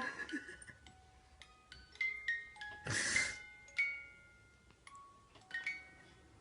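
Tinkling melody of single bell-like notes at changing pitches, each ringing briefly, with one short noisy burst about three seconds in.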